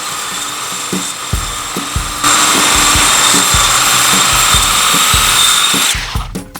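An electric power tool cutting wood along the edge of a door, with a steady high whine; it gets louder about two seconds in as it takes the cut and stops about six seconds in. Background music with a steady drum beat plays under it.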